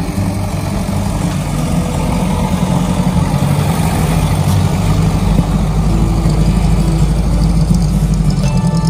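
Engine of a vintage 1920s car running at low speed as the car rolls slowly forward, a steady low rumble.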